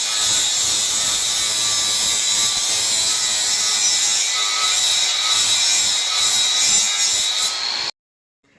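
Power tool running steadily with a constant high whine while cutting into the Land Rover's sheet-steel body, as when drilling out spot welds on the B-pillar. It cuts off abruptly near the end.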